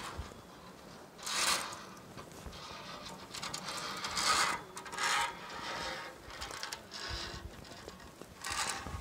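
Metallic clinking and scraping of safety-harness connectors sliding along the bridge's steel safety cable, in short bursts every second or two as the walker moves forward.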